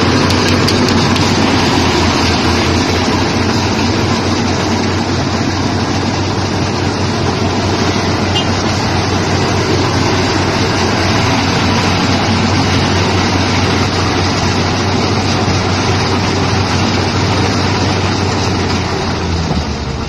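Yanmar crawler rice combine harvester running steadily as it drives and cuts through standing rice: its diesel engine and threshing machinery make a constant low hum under a dense mechanical rattle.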